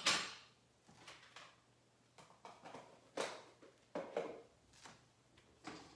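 Kitchen handling noise: a sharp knock at the start, then a string of lighter knocks and clatters as containers and utensils are handled and set down on the counter.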